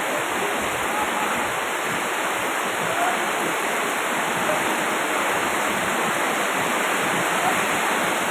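Heavy rain pouring down steadily, a dense even rush of water.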